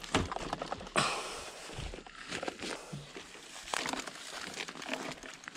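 Rustling in dry grass with scattered clicks and knocks as a mountain bike is handled and lifted up off the ground.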